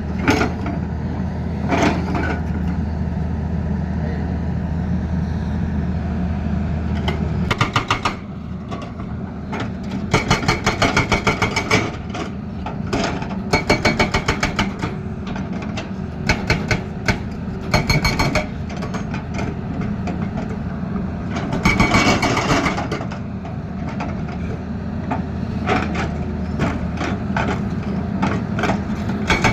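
Excavator diesel engine running, with several bursts of rapid, evenly spaced hammering from a hydraulic breaker.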